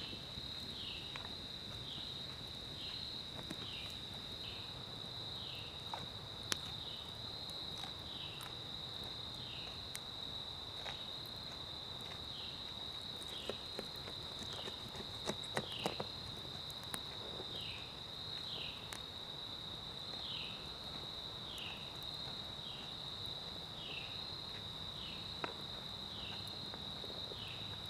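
Insect chorus: a steady high-pitched trill, with a short falling chirp repeating about once a second just below it. Scattered sharp snaps and clicks sound over it, a few in quick succession past the middle.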